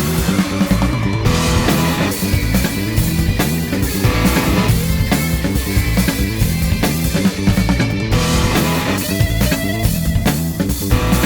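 Rock music soundtrack with electric guitar and drum kit, playing a steady driving beat.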